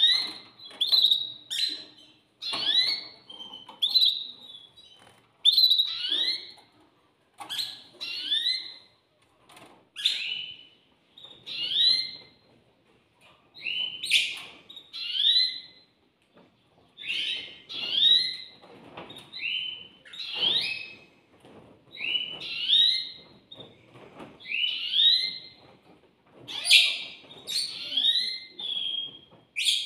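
Canary nestlings cheeping in the nest: short, high, rising peeps in clusters about once a second, going on without a break.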